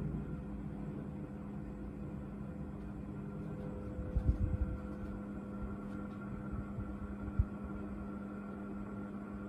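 National F-560A1 56-inch industrial ceiling fan running, its motor giving a steady, stable hum over a low rumble of moving air, rather than the uneven hum that dimmer-type regulators cause. A brief cluster of low thumps comes about four seconds in, and a single sharp knock a few seconds later.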